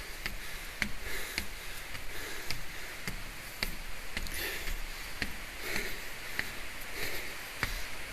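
Footsteps at a steady walking pace, about two light steps a second, with soft rustling between them.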